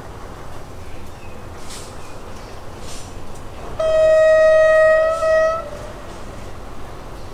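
Diesel locomotive air horn sounding one long blast of nearly two seconds about halfway through, a single steady pitch with a brief dip near its end. A low steady rumble runs underneath.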